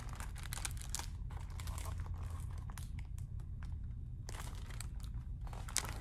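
Paper rustling and crinkling in irregular bursts as the pages of a book are handled and turned.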